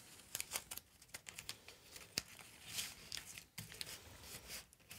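Faint crinkling and small clicks of blue painter's tape being handled and pressed down as a dowel is taped onto a walnut board, with a soft rustle about three seconds in.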